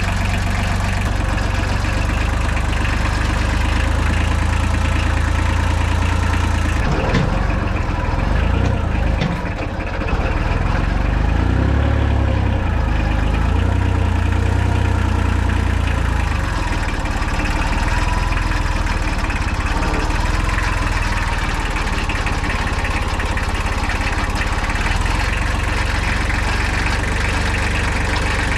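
An engine running steadily at a low, even pace. For a few seconds about a third of the way in its pitch wavers up and down and it dips briefly, then it settles back to a steady run.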